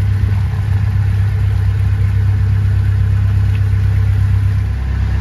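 Narrowboat's engine running steadily, a low, even hum.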